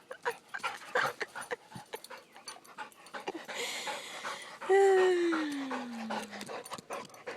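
Dog panting rapidly, out of breath from fetching, with one long whine that slides steadily downward in pitch about five seconds in.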